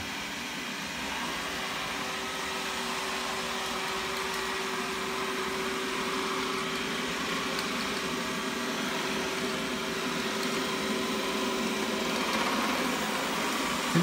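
First-generation Xiaomi Mi robot vacuum running steadily on its mapping pass, a constant whir of its suction fan and brushes, with a faint steady hum under it that stops about twelve seconds in.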